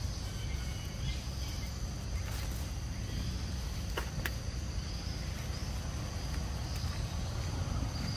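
Outdoor ambience: a steady high insect drone over a low rumble, with a couple of short sharp clicks about four seconds in.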